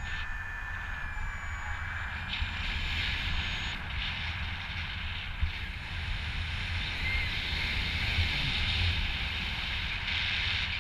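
Airflow of paraglider flight rushing over the pilot's camera microphone: a steady hiss with an uneven low rumble.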